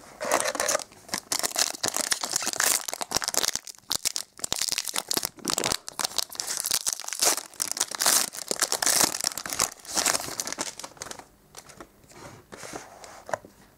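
Foil wrapper of a trading-card booster pack being crinkled and torn open by hand. There is a dense run of crackling, which thins to a few faint rustles about eleven seconds in.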